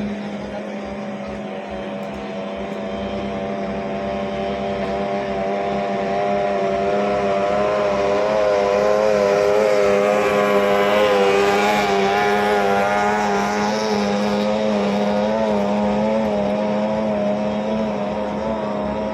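18 hp outboard motors on racing boats running at high revs, their wavering engine note growing louder to a peak about eleven seconds in and then easing off as they pass, over a steady low hum.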